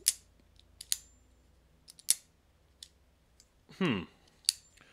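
Winter Blade Co. Factor magnetic folding knife being flicked open and shut by hand: several separate sharp metallic clicks, a couple of them followed by a brief high ting as the blade rings.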